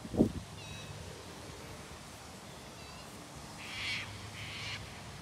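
Birds calling in open parkland: a few short high chirps, then two harsh calls of about half a second each, about four seconds in. A low thump comes just after the start.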